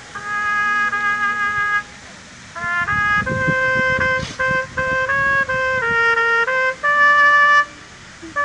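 Military brass band playing: trumpets and other brass hold long notes in chords over drum beats, breaking off briefly about two seconds in and again near the end.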